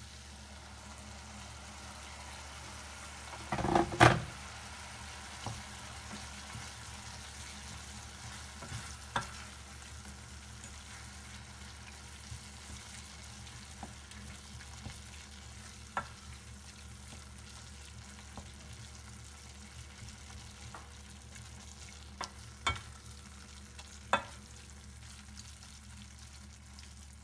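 Minced beef with onion and tomato-pepper paste sizzling in a stainless steel pot, with a splash of just-boiled water added, stirred with a wooden spoon that clicks against the pot now and then. A loud knock about four seconds in.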